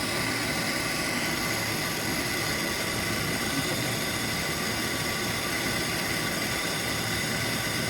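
Gas brazing torch burning with a steady hiss, its flame turned up large.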